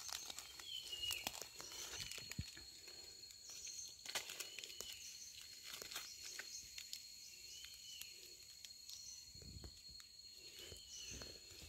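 Dry leaf litter rustling and twigs crackling as a bitter bamboo shoot is dug out of the forest floor and pulled up by hand. Behind it runs a steady high-pitched insect drone, with a few short bird chirps.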